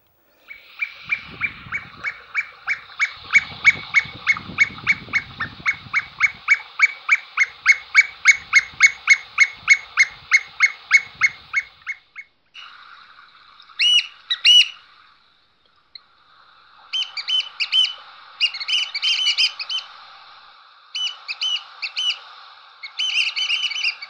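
Australian pied oystercatchers piping: a long, even run of sharp whistled calls, about four a second, for some eleven seconds. After a brief break come shorter bursts of rapid piping calls over a steady hiss.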